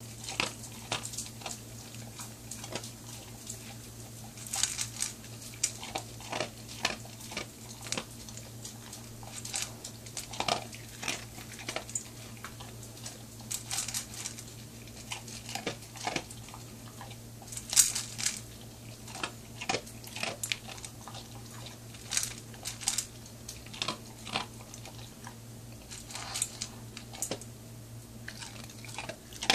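A large dog eating dry kibble from a stainless steel bowl: irregular crunching and chewing, with clinks of kibble and muzzle against the metal bowl.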